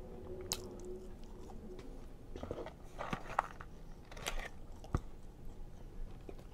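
Close-miked chewing of a waffle fry, with the crinkle of a paper fry carton being handled midway and a sharp knock about five seconds in.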